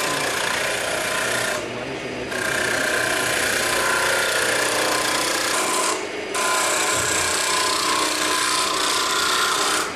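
Stabilo 900 UG wood lathe turning a wooden workpiece while a hand-held turning chisel cuts it: a continuous scraping, rasping cut that breaks off briefly twice, about two seconds in and about six seconds in, as the tool leaves the wood.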